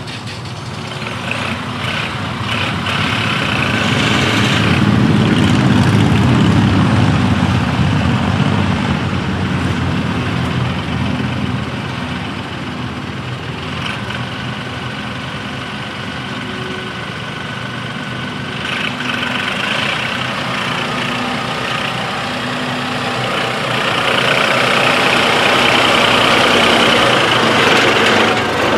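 Massey Ferguson 2607 tractor's diesel engine running under load while its front loader scrapes and lifts soil. It grows louder a few seconds in and again near the end, as the tractor drives close by.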